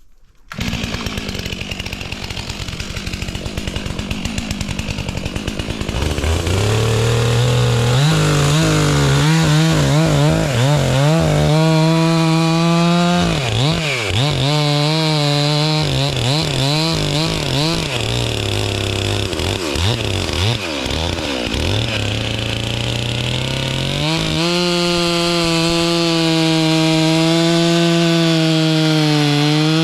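Two-stroke gas chainsaw starting up and idling, then opened to full throttle about six seconds in and cutting into a pine, its engine pitch dipping and recovering as the chain bogs in the wood. Near the two-thirds mark it eases off briefly, then runs high and steady at full throttle again.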